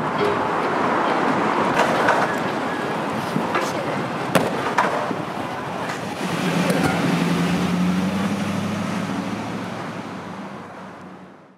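Street and traffic noise with a few sharp knocks, then a motor vehicle's engine hum coming in about six seconds in. It all fades out at the end.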